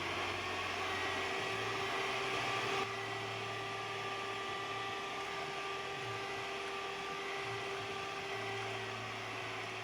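A small electric motor running steadily with a whine; the hiss in it eases slightly about three seconds in.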